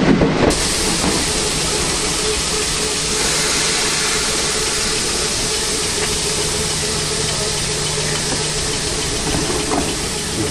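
Passenger train running into the platform and standing there: a steady loud rush and hiss of train noise with a constant low hum underneath.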